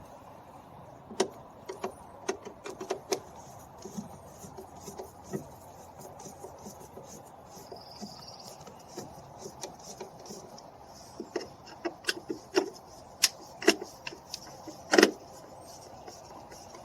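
Scattered light metallic clicks and knocks as screws are worked out of a car's interior door panel with a Phillips screwdriver, with a louder knock about 15 seconds in.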